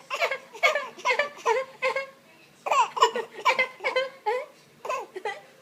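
A baby making a run of short, high-pitched vocal sounds, one after another, with a brief pause about two seconds in.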